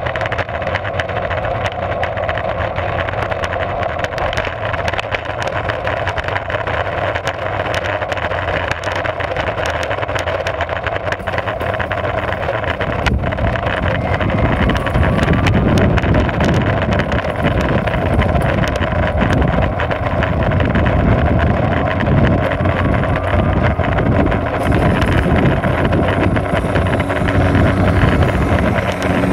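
DIY electric longboard rolling on asphalt at about 10 mph. The 83 mm urethane wheels make a steady road rumble under the whine of its brushless outrunner motor and belt drive. Wind buffets the microphone more heavily from about halfway through.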